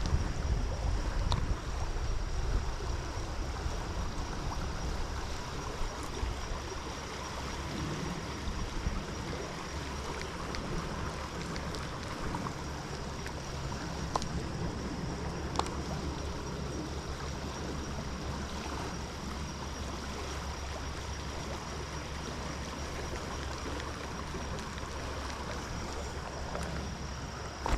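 Steady rush of flowing stream water, with wind rumbling on the microphone, a thin steady high-pitched whine and a few faint clicks.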